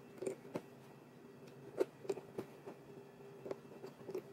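Hand-stitching leather: needle and thread worked through a leather scabbard, giving scattered light clicks and rustles at an uneven pace, the sharpest about two seconds in. A faint steady hum runs underneath.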